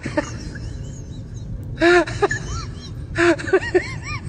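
Small dog whining and yelping: short high cries that rise and fall in pitch, in clusters about two seconds in and again a second later, with fainter squeaks before.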